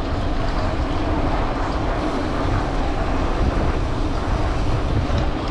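Wind buffeting the microphone of a rider on a moving bicycle: a steady, rough low rumble with a hiss over it.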